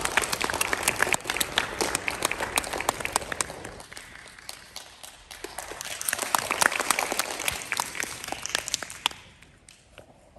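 Audience applauding, easing off about four seconds in, swelling again a couple of seconds later and dying away about nine seconds in.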